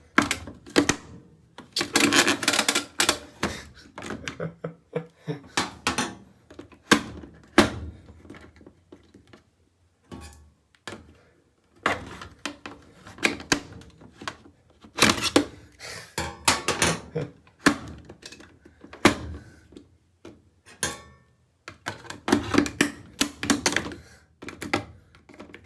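Scissors prying and scraping at a plastic control knob on an old washing machine's control panel: irregular bursts of sharp clicks, snaps and knocks, with a couple of brief pauses.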